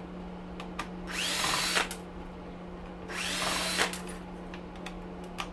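Power drill spinning in two short bursts, each one quickly rising in pitch and then holding for about half a second, as it backs screws out of an air cleaner's plastic housing. Small clicks of handling come between the bursts.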